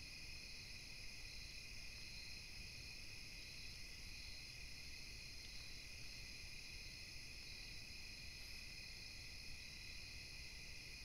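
Faint, steady night chorus of crickets and other insects, an unbroken high-pitched trill in several layers, over a low rumble.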